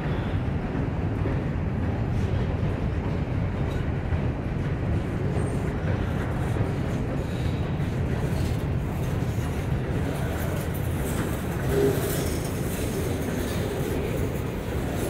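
Freight cars of a Norfolk Southern mixed manifest train rolling past at close range: a steady rumble of steel wheels on rail with clicking over the joints, and a short wheel squeal about three-quarters of the way through.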